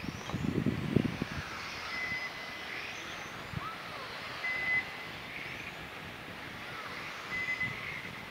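Three short, high electronic beeps about two and a half seconds apart, typical of an RC race lap-timing system as cars cross the line, over the faint hiss and whine of electric radio-controlled cars running on the track. A brief low rumble comes about half a second in.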